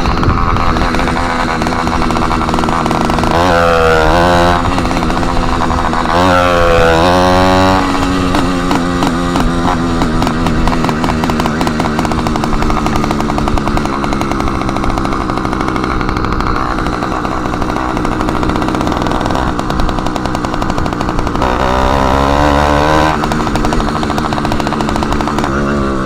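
Motorized bicycle's small engine running loud with its exhaust tip removed. Engine speed dips and climbs back three times, about four, seven and twenty-two seconds in, between steadier running.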